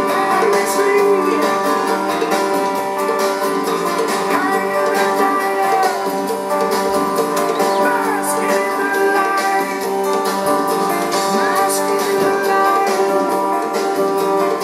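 Background music led by guitar, running steadily.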